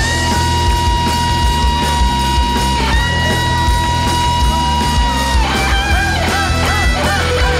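Rock band playing live: a lead electric guitar holds one long high note, picked again about three seconds in, then breaks into quick bent notes over the drums and bass.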